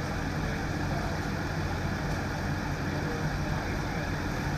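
Vehicle engines idling, a steady low rumble with no distinct events.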